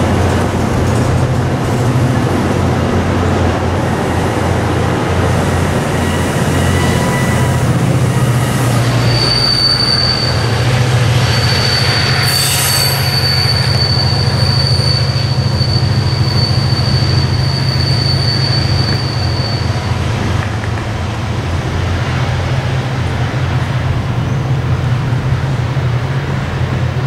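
MARC commuter train of bilevel coaches running away on the rails, with a high steady wheel squeal from about nine seconds in that lasts some ten seconds. A low steady rumble of wind on the microphone runs underneath.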